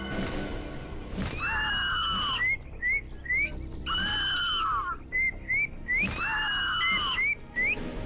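Falcon screeching: three long harsh screams, each with a falling undertone, with quick short rising calls between them, starting about a second in, over background music.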